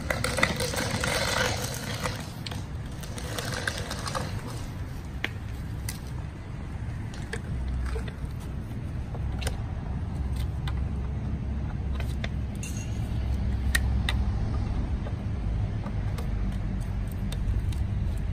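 An engine running steadily in the background, picking up a little about halfway through. Over it, a hydraulic hose scrapes across asphalt for the first few seconds, then come scattered metallic clicks and clinks as the hose quick-couplers are worked at the pipe bursting machine's valve block.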